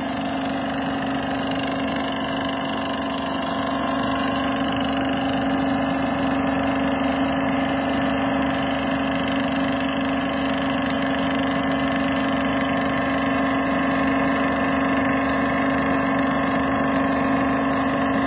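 8mm sound film projector running: a steady mechanical hum and whir from its motor and film-transport mechanism, getting slightly louder a few seconds in.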